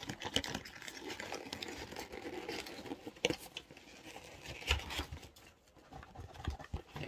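Keyboard box and its packaging being handled: rustling and crinkling with scattered taps, and sharper knocks about three seconds in and again near five seconds.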